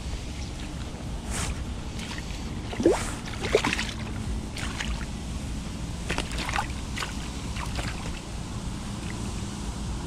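Water sloshing and splashing around a landing net held in shallow water while a hand works inside it at a landed sea bass, with a few sharper splashes about three seconds in, over a steady low rumble.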